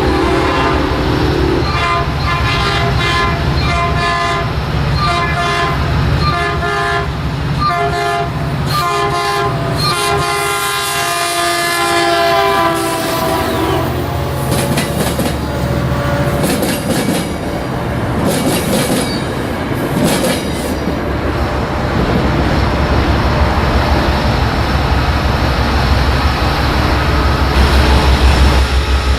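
Locomotive horn sounding a string of short blasts, the last one held and dropping in pitch as the train passes. Then the train's wheels clatter over the rail joints, with the low rumble of the locomotive's engine swelling near the end.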